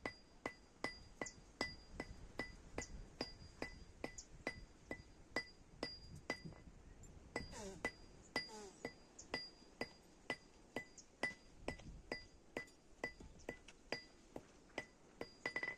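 Hammer beating metal on an anvil at the forge in a steady rhythm of about three blows a second, each blow ringing with a bright metallic ping. There is a short pause about seven seconds in.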